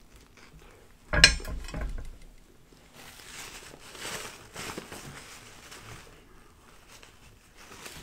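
Biting into a submarine sandwich: a sharp crunch about a second in, then quiet chewing and the faint rustle of a paper napkin.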